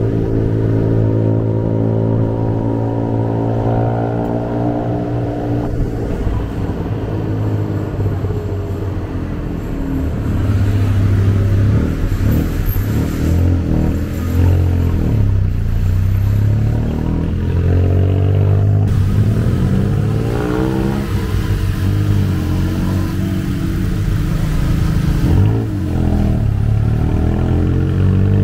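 An engine running loudly, its pitch rising and falling over and over as it is revved up and eased off.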